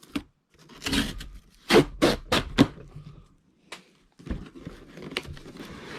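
Cardboard shipping box being torn open by its pull-tab tear strip, ripping in a burst and then four quick jerks. This is followed by cardboard scraping and rustling as the box is handled.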